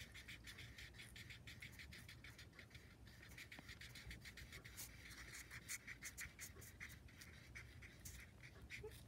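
Felt-tip marker scribbling quickly back and forth on paper while colouring in: faint, rapid scratchy strokes.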